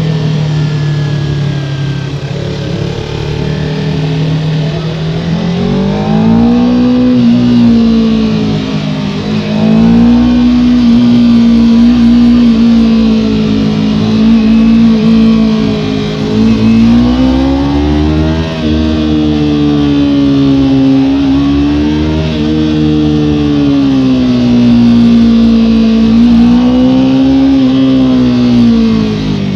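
Kawasaki Ninja 300's parallel-twin engine riding under way, its pitch climbing and dropping again and again as the throttle is opened and closed.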